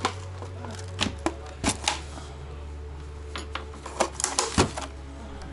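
Irregular sharp clicks and taps of small plastic and metal laptop parts being handled and worked during disassembly, several in quick succession about four seconds in.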